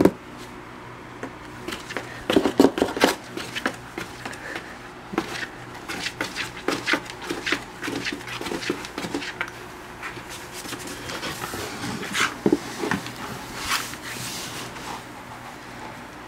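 Scattered rustling, scraping and tapping on a cardboard box and a sheet of crinkly paper as a dachshund shifts inside the box and a cat leans against it, with a few louder knocks against the cardboard.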